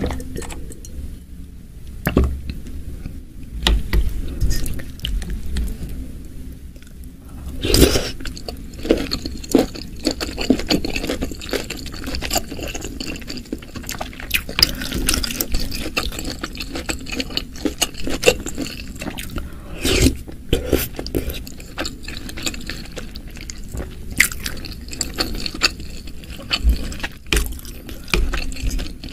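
Spoon scooping and stirring through a bowl of oily chili broth with meatballs and beef tendon, close-miked: liquid sloshing and dripping, with irregular clicks of the spoon scraping the bowl and a couple of louder splashy scoops.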